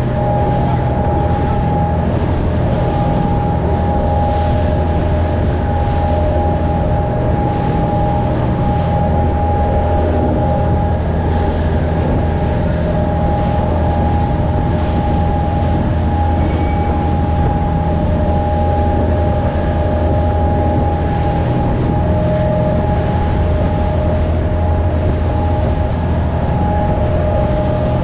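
Speedboat engine running steadily at speed, a constant low drone with a higher whine, over the rush and splash of water churned up beside the hull.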